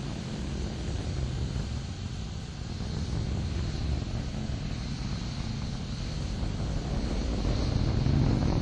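Atlas V rocket climbing under the thrust of its RD-180 main engine: a steady low rumble that grows louder toward the end.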